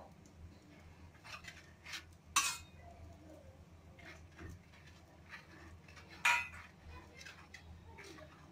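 Metal spoon clinking and scraping against a plain (not non-stick) roti griddle while oil is spread round the edges of a dosa: a handful of irregular light clinks and scrapes, the loudest two about 2.5 and 6 seconds in.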